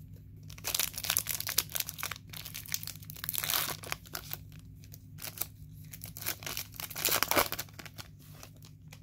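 Foil wrapper of a 2020 Bowman baseball card pack being torn open and crinkled by hand, in irregular bursts of crackling.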